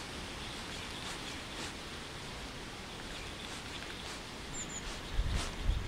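Steady rushing outdoor noise of wind ahead of a storm, with a few faint ticks. A brief high bird chirp sounds twice about four and a half seconds in, and low thumps of wind buffeting the microphone start near the end.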